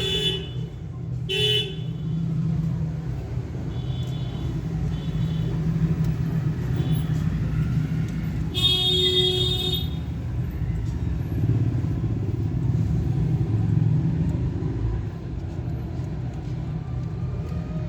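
Road traffic with a steady low rumble, and vehicle horns honking: two short honks near the start and a longer honk about halfway through.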